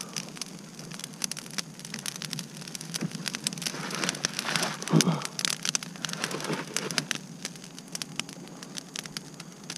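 Brush-pile fire crackling: a dense, irregular run of small sharp pops over a steady hiss as burning cardboard catches the damp branches. A louder knock comes about five seconds in.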